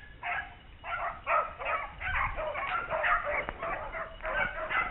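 A pack of beagles baying in quick, overlapping barks as they run a swamp rabbit's track toward the hunter.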